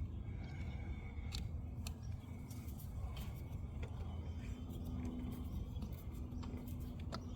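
Scattered small metallic clicks and taps from a hand tool tightening the screws that hold a coolant reservoir tank, over a steady low rumble.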